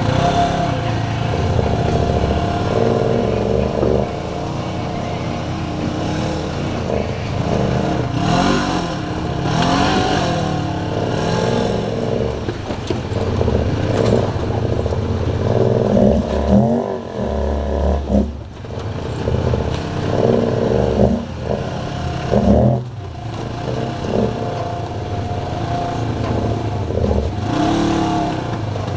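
Side-by-side UTV engines running at crawling speed on a rocky trail climb, revving up and down several times. A few thuds come past the middle.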